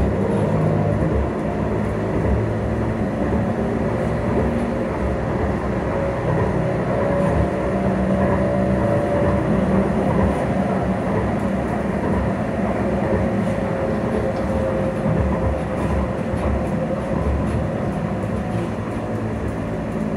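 Edinburgh tram (CAF Urbos 3) in motion, heard from inside the passenger saloon: a steady rumble of wheels on rail with a faint even hum.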